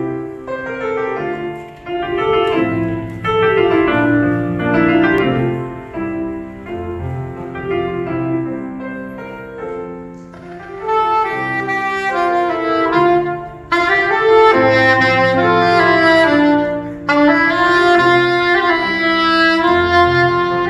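Soprano saxophone playing a slow hymn melody over piano accompaniment. It grows louder and brighter about two-thirds of the way in.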